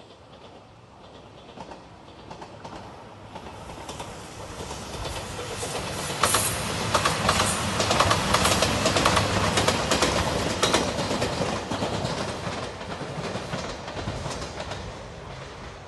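A JR Shikoku 2700 series diesel express train passing close by. Its sound builds over about six seconds, peaks with rapid wheel clacks over the rail joints and a low engine hum, then fades away.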